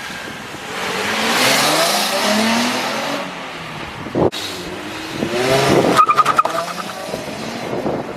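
2005 Nissan 350Z's 3.5-litre VQ35DE V6 revving through HKS hi-flow cats and a Z1 Y-pipe on the stock cat-back exhaust, which has a slight leak at the Y-pipe joint. The exhaust note climbs in pitch over a couple of seconds, breaks off abruptly about four seconds in, then rises again, with a few short sharp pulses near six seconds.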